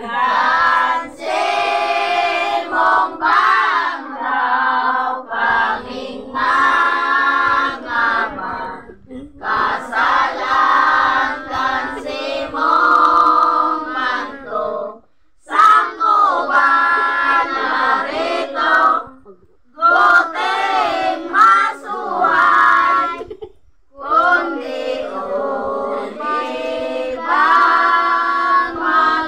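A group of children and women singing a devotional song together, in long phrases broken by short pauses.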